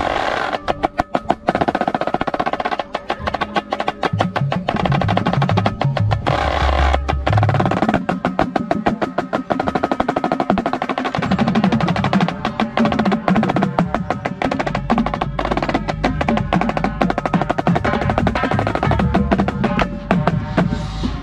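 Marching snare drum played close up, with fast, dense stick strokes and rolls. Behind it the rest of the drum corps plays sustained pitched notes and low bass notes.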